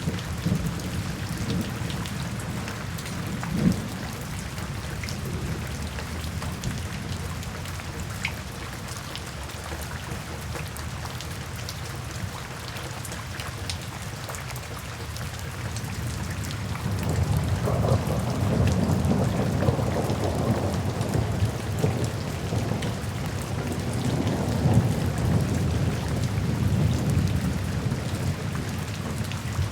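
Steady rainfall hissing, with a low rolling rumble of thunder that builds a little past halfway and keeps rolling.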